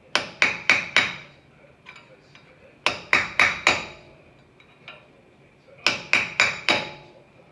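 Hammer striking a chisel set on the lip of a wheel-hub dust cap, driving the cap into the hub. It comes in three quick bursts of about four strikes each, every strike sharp and metallic with a short ring.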